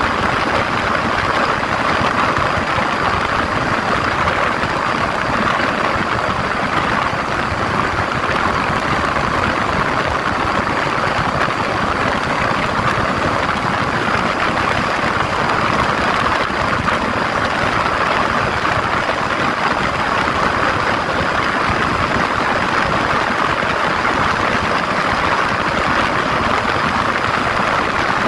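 Yamaha 150 cc motorcycle engine running steadily at high revs, near 7,000 rpm at highway speed, under a constant rush of wind.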